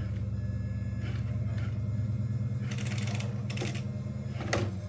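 Traxxas TRX-4 Ford F-150 RC crawler's electric motor and drivetrain running with a steady low hum at crawling speed, with scattered clicks and scrapes of tyres and plastic body against the monster truck it is climbing off. A sharp knock comes about four and a half seconds in as the crawler comes down onto the carpet.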